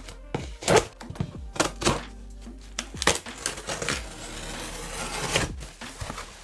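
A knife slitting the packing tape and cardboard of a parcel, with knocks and taps as the box is handled, then a longer scraping cut through the tape in the second half.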